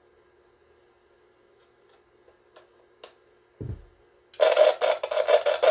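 Faint hum with a few small clicks and a thump, then about four seconds in loud, pulsing static bursts from the Superstar T747 microphone test center's speaker as its knobs are worked. The owner says the unit definitely needs to be cleaned, a sign of scratchy, dirty controls.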